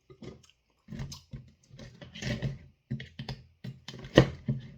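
Irregular clicks and knocks of a utensil against a bowl as chicken strips are mixed through thick buffalo sauce, with the loudest knock near the end.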